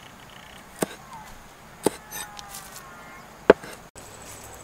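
Three chops of a knife on a wooden chopping block, spaced a second or more apart.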